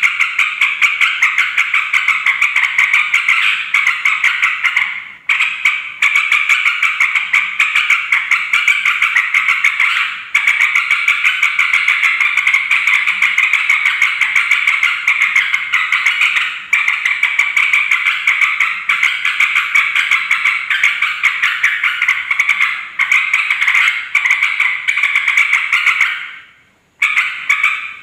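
Yellow-vented bulbul (trucukan) calling noisily: a fast, unbroken run of chattering notes with a few short pauses, and a gap of about a second near the end.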